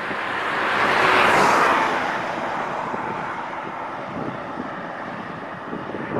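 A road vehicle passing close by: its noise swells to a peak about a second in, then fades away over steady road and wind noise.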